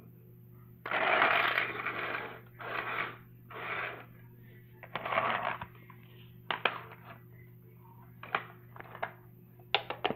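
Rustling handling noise close to the microphone, several times in the first half, then a run of sharp clicks as small plastic toy figures and a toy car are moved and set down on a wooden floor.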